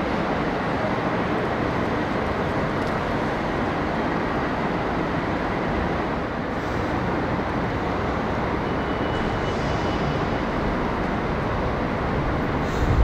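A train running: a steady, even noise of wheels on rails, with a faint thin high squeal for about a second around nine seconds in.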